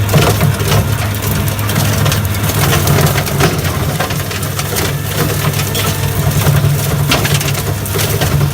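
New Holland L170 skid steer running steadily under load while its 5 ft Loflin brush cutter chops thick brush, with constant crackling and snapping of wood being shredded.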